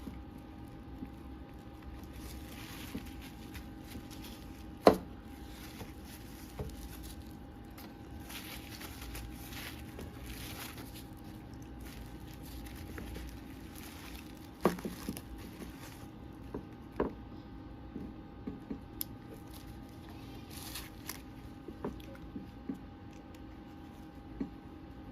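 Plastic packaging being handled and torn open, with crinkling and rustling. There are two sharp knocks, about five and fifteen seconds in, and a scatter of small clicks after the second, over a faint steady hum.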